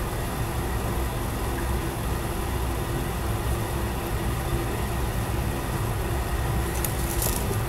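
Steady low mechanical hum of a running motor, with a light hiss over it and a few faint clicks near the end.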